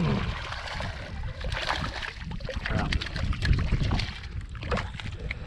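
Hooked speckled trout thrashing and splashing at the water's surface beside a kayak as it is reeled in and lifted out, in several short splashes. Wind rumbles on the microphone throughout.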